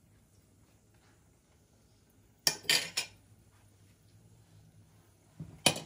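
Metal kitchen tongs knocking and clinking against metal cookware: a quick cluster of clinks about two and a half seconds in and another pair near the end.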